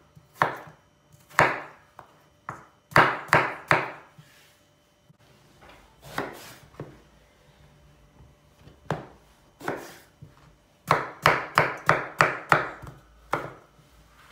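A chef's knife chopping potato and eggplant on a wooden cutting board: separate knife strikes on the board, a quieter stretch in the middle, then a quick run of chops near the end.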